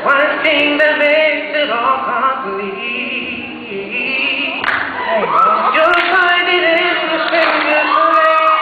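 A young man singing into a handheld microphone, holding long notes that bend and waver in pitch.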